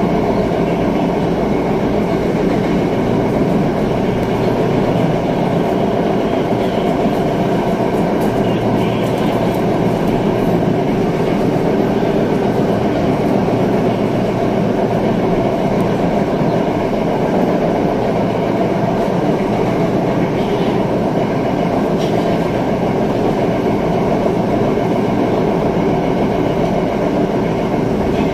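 LRT Line 2 train running along the track, heard from inside the passenger car: a steady noise of wheels on rail, with a steady hum running through it.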